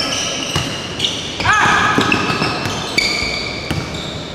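Basketball dribbled on a hardwood gym floor, several sharp bounces, with sneakers squeaking in short high chirps as players cut and move.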